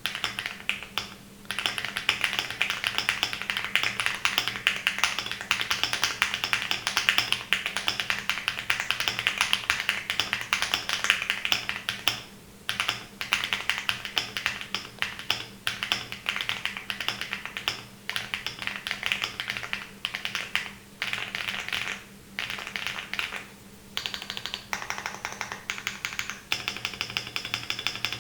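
Typing on a Lucky65 v2 mechanical keyboard fitted with stock-lubed HMX Yogurt switches, an FR4 plate and no foam: a fast, dense run of keystroke clacks with a few short pauses, turning to more spaced-out strokes near the end.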